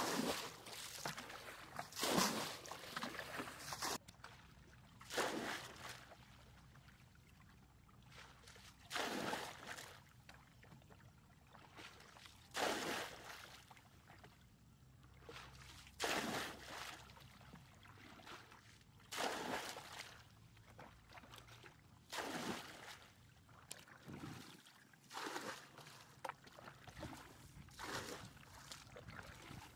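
Muddy pond water being bailed with a plastic bucket: a scoop-and-splash as each bucketful is thrown out, repeating about every three seconds.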